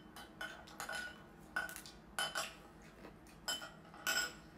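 Chopsticks clinking against ceramic plates: about half a dozen short, sharp clinks, each with a brief ring, spread through the few seconds, with softer clicks between.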